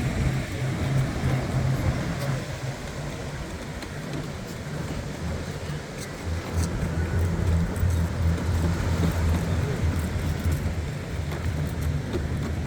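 Wind rumbling on the microphone over the steady wash of sea surf, the low rumble swelling in the middle and easing off.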